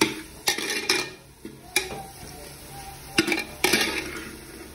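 A metal spoon knocking and scraping against a pan, about six sharp knocks, as fried onions are lifted out of hot oil, with the oil sizzling faintly underneath.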